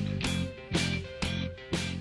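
Guitar music: chords strummed in a steady rhythm, about two strums a second, each left ringing.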